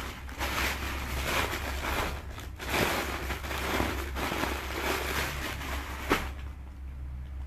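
Plastic packaging crinkling and rustling as clothes are handled, in uneven surges, ending with a sharp click about six seconds in. A steady low electrical hum runs underneath.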